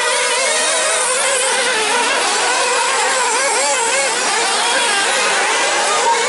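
A field of 1/8-scale nitro off-road buggies running together: the high-pitched whine of many small two-stroke glow engines, overlapping and revving up and down as the cars lap the track.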